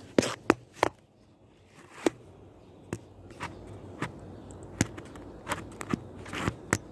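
Scattered sharp clicks and taps, roughly one every half second to second, over a faint hiss.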